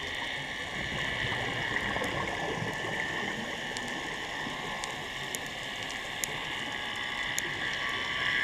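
Underwater ambience picked up by a submerged camera: a steady muffled hiss with scattered faint sharp clicks.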